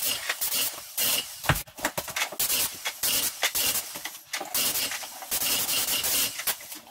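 Airless paint spray gun hissing in repeated short bursts, about one or two a second, as the trigger is pulled and released.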